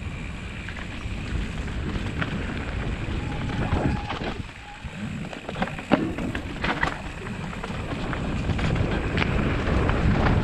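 Mountain bike descending a rough dirt trail at speed: wind rushes over the action camera's microphone while the tyres rumble on dirt, and the bike gives irregular sharp clattering knocks as it goes over roots and rocks.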